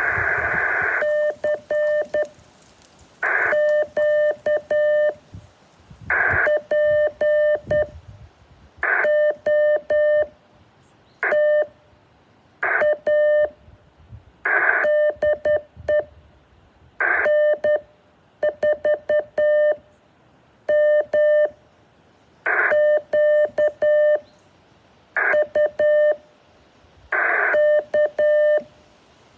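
Morse code: a single beeping tone keyed in short groups of dots and dashes, with a burst of radio hiss of about a second before each group, the pattern repeating every two to three seconds.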